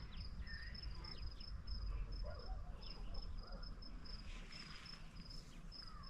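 Cricket chirping steadily, a short high pulse repeating a few times a second, over a low rumble.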